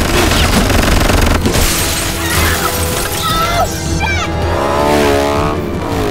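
Car-chase film soundtrack: a driving action score over car engine noise, with sharp impacts and shattering glass in the first half.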